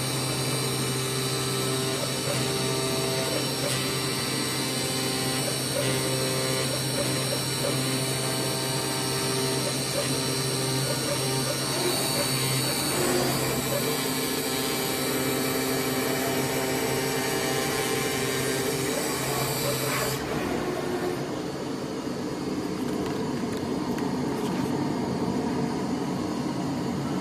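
AOKE DCZ70 digital flatbed cutter running, its cutting head working across a sheet of board with a steady mechanical whine and hum. About twenty seconds in, the high whine cuts off suddenly, leaving a lower steady hum.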